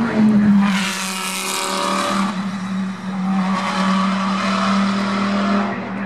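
GT3 race cars' engines running hard at a steady pitch, out of sight beyond the bend. About a second in comes a burst of hissing tyre squeal lasting over a second.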